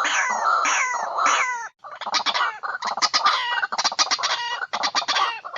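Birds calling: a quick series of repeated falling calls, then, after a sudden break about two seconds in, rapid chattering calls.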